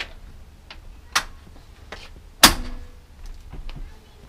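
Thule T2 Pro hitch-mounted bike tray rack being folded down: a series of metal clicks and clunks as it pivots, the loudest clunk about two and a half seconds in.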